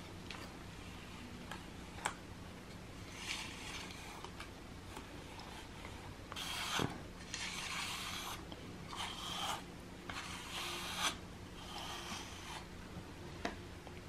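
Slicker brush drawn through a cat's thick fur: a series of soft, raspy brushing strokes, mostly in the second half.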